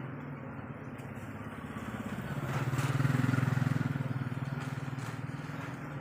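A motorcycle engine passing by: a low, fast-pulsing hum that grows to its loudest about three seconds in, then fades away.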